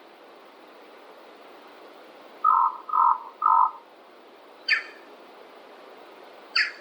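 Birds calling in a forest: three short calls in quick succession about two and a half seconds in, then two brief sharp calls a couple of seconds apart, over a steady background hiss.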